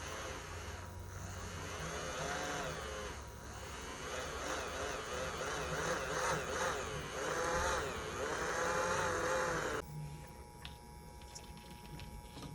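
Small electric motor running with a whine that wavers up and down in pitch as its speed changes, cutting off sharply about ten seconds in.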